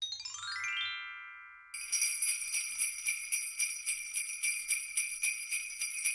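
A magic-chime sound effect, a quick run of bell-like notes stepping down in pitch and ringing on. Sleigh bells then jingle, shaken in a steady rhythm of about three or four shakes a second.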